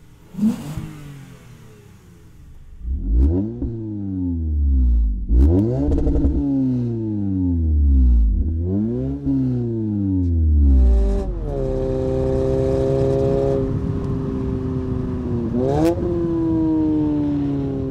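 Toyota Camry XSE's 2.5-litre four-cylinder revved through a MagnaFlow cat-back exhaust with dual resonators. There is a short blip about half a second in. From about three seconds in come four quick rev rises and falls, then the engine is held at a raised steady speed. A last quick blip follows, and the revs then ease slowly down.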